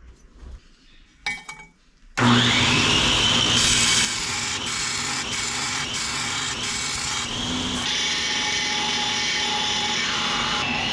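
An electric grinder starts about two seconds in, its whine rising as it spins up, then runs steadily, a little quieter after a couple of seconds, as it works steel. A few faint clicks come before it starts.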